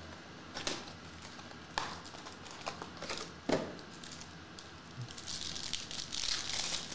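Foil wrapper of a trading-card pack torn open by hand, crinkling densely in the last second and a half. Before that come a few separate sharp rustles and taps as the pack is handled.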